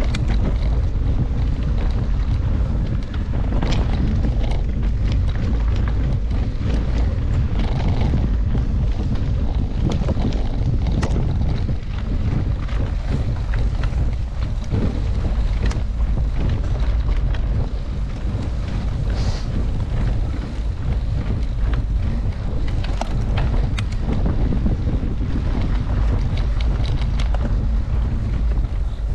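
Wind buffeting the microphone while mountain biking, a steady heavy rumble, with scattered clicks and rattles from the bike over rough ground.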